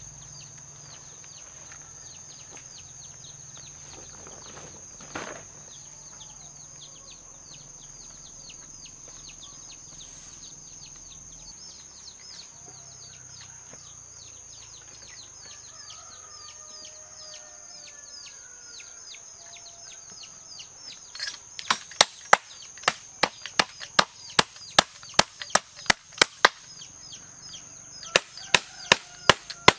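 Chopping with a blade, sharp strokes about three a second, starting about two-thirds of the way in, pausing briefly and resuming near the end. Before the chopping there is only a steady high whine with many small high chirps.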